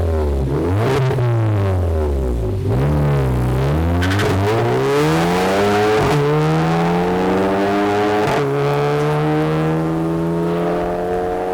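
VW Mk7 GTI's 2.0-litre turbocharged four-cylinder engine through an Armytrix valvetronic exhaust, revved in several quick blips and then held in one long climb in revs that slows near the end.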